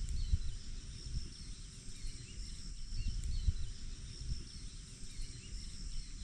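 Mountain ambience: insects drone steadily and birds chirp in frequent short calls over a low gusty rumble of wind on the microphone.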